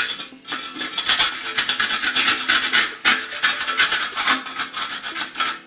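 Steel plastering trowel blade being scraped in quick, repeated rasping strokes, a few brief pauses between runs, as softened acrylic render is worked off after a soak in plaster retardant.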